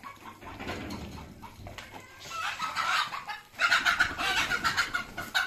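Chickens clucking, repeated calls growing busier and louder in the second half.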